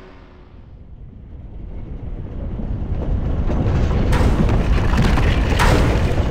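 Earthquake sound effect: a deep rumble that swells from about a second in and grows loud, with crashing, rattling bursts in the second half as things shake and fall.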